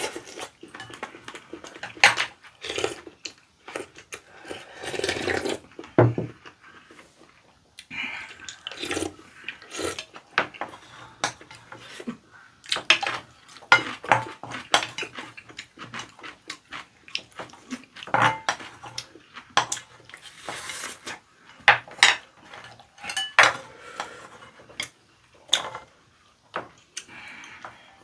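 Spoons and chopsticks knocking and scraping against ceramic bowls as two people eat rice, with scattered clicks and short noisy scrapes, alongside mukbang-style eating sounds.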